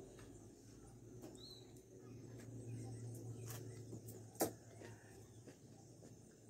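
Quiet eating sounds: a fork picking at fries on aluminium foil, with a few sharp clicks and taps, the loudest a little past four seconds in, over a low steady hum.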